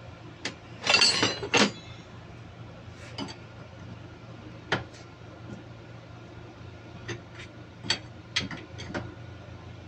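Steel tools clinking and clanking against a diesel unit injector held in a bench vise as a large open-end spanner is fitted to its nut. A loud ringing metal clatter about a second in, then scattered single light clinks.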